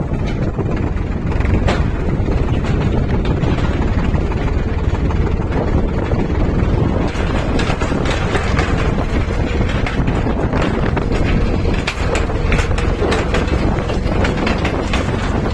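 Tractor engine running steadily while pulling a goose-foot cultivator through orchard ground, with wind buffeting the microphone. Short sharp rattles come often in the second half.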